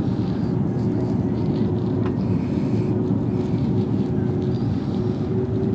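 Airliner cabin noise: a steady drone of jet engines and rushing air, with a faint constant hum running through it.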